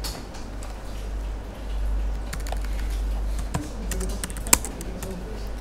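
Computer keyboard being typed on: a handful of scattered keystrokes in the second half, with one louder click near the end.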